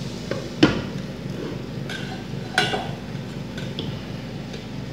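Glass pot lid clinking against the rim of a frying pan as it is set on to cover the dish. A few short clinks, the sharpest about half a second in and another about two seconds later.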